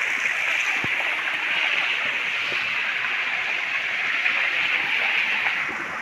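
Shallow mountain stream flowing steadily over rocks.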